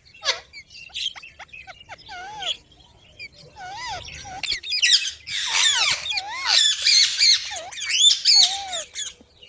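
Pet parrot squawking and chattering: a few short scattered calls, then from about five seconds a loud, rapid run of harsh, swooping calls. The owner takes it for the bird being angry and scolding.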